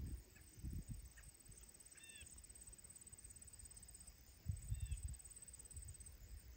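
Quiet walking sounds on a trail, with low thuds near the start and again past the middle. Over them a bird gives short, high arched calls a few seconds apart, with a steady high insect trill in the background.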